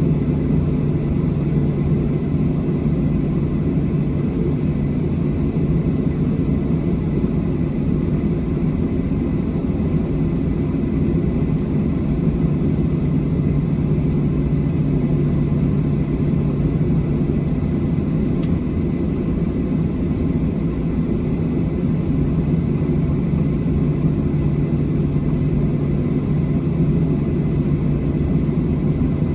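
Steady jet cabin noise inside a Boeing 737-700: its CFM56-7B engines and airflow make a continuous low roar with faint steady whines above it.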